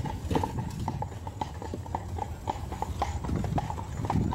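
Hooves of a horse drawing a carriage clip-clopping on the road in a steady, even rhythm, about four strikes a second, over a low rumble.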